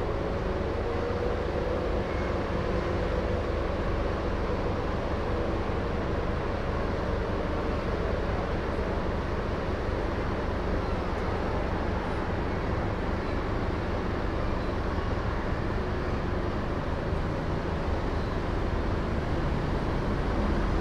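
Steady city traffic ambience: a continuous low rumble of distant vehicles with no single event standing out, and a faint steady tone in the first few seconds.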